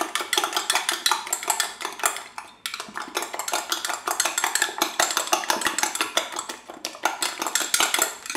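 Egg mixture being beaten by hand with a utensil in a glass Pyrex measuring jug: rapid clinking of the utensil against the glass, with a short pause about two and a half seconds in.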